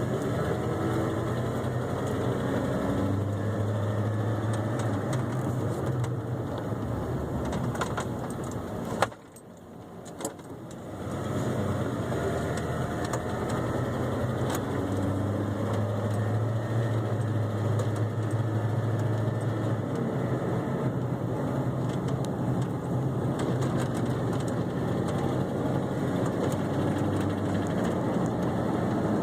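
Ford F-150 pickup being driven, its engine and road noise steady, with a light ticking that is the fault being recorded. About nine seconds in, the sound drops away sharply for a couple of seconds, with a couple of clicks, then comes back.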